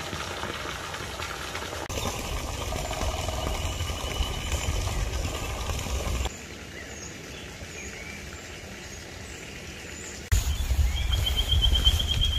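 Outdoor forest ambience with birds calling in short, fast trills, the clearest near the end, over a low rumble. The background changes abruptly twice as the shots cut.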